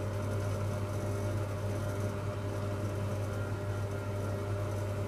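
Hoover Logic A3790 washing machine running with a steady, even motor hum, sounding smooth and stable.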